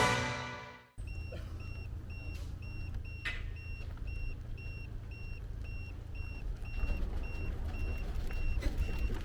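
A vehicle's electronic warning beep repeating about twice a second over a low engine idle. The intro music fades out just before.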